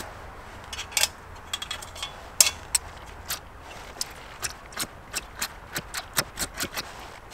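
A lighter clicked over and over without catching: about twenty sharp clicks, irregular at first, then about three a second. It is too cold for it to light.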